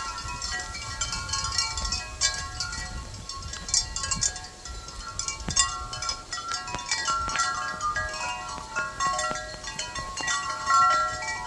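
Wind chimes ringing in the breeze, many overlapping metallic tones struck irregularly, with wind buffeting the microphone.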